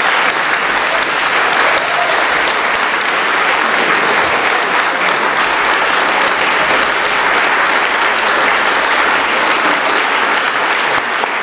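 Sustained applause from a large gathering, many people clapping in a dense, steady stream.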